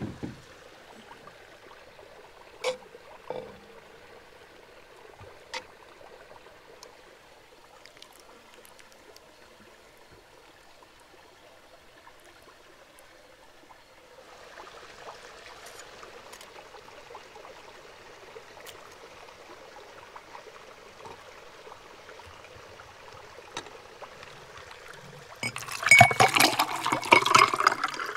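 Liquid being poured, with clinks and knocks, loudest in the last few seconds; before that a low steady background broken by a few sharp knocks.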